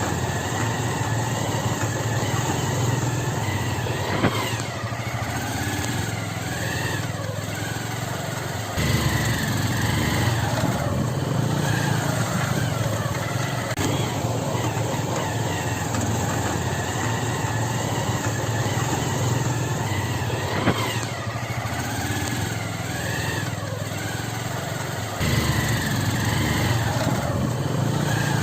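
Motorcycle engine running on a muddy off-road track, its pitch rising and falling as the rider works the throttle. The sound jumps suddenly louder about 9 seconds in and again about 25 seconds in, with a sharp click twice.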